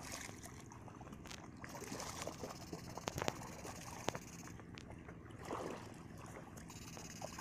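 Faint sloshing and splashing of legs wading through shallow water thick with floating plants, with scattered small clicks and two soft swells of water noise.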